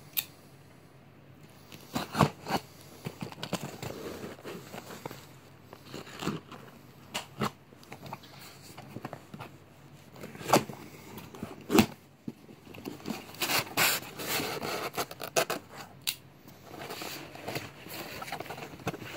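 A cardboard shipping box being opened by hand: tape being cut and torn, with cardboard and packing foam scraping and rustling, and scattered sharp clicks and knocks. The handling grows busier and more continuous in the last few seconds.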